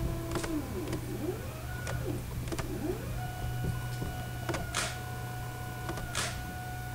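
NEMA17 stepper motor on an A4988 driver whining as it drives the camera slider dolly along its GT2 timing belt. The pitch glides up and down as the motor speeds up and slows, then settles into a steady tone from about three seconds in. Short scratchy swishes come twice in the second half, over a low steady hum.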